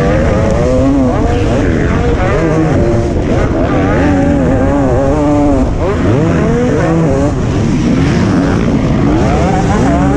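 Motocross bike engine at race pace, heard close up from the rider's helmet. The revs rise and fall again and again as the throttle opens and closes over the jumps and through the corner.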